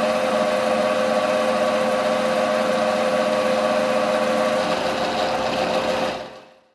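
A workshop machine's electric motor running steadily with a constant hum, then dying away near the end.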